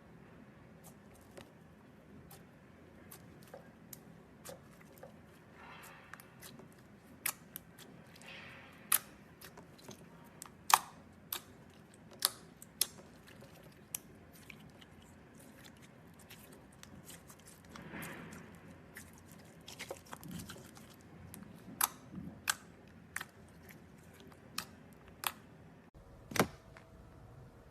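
Clear slime with glitter being mixed and squeezed by hand: irregular sharp sticky pops and clicks, a few much louder than the rest, with softer squishing in between.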